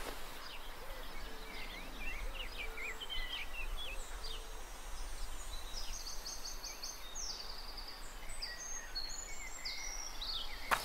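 Forest ambience: small birds chirping in many short calls that rise and fall in pitch, over a low steady background haze.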